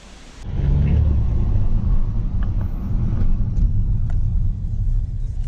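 Car engine and road rumble heard from inside the cabin while driving, a steady low rumble that starts abruptly about half a second in, with a few faint clicks.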